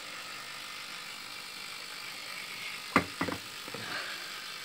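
Steady background hiss, with a quick cluster of three or four sharp knocks about three seconds in.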